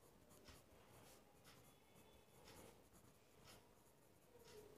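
Faint scratching of a pen writing on paper, in short separate strokes.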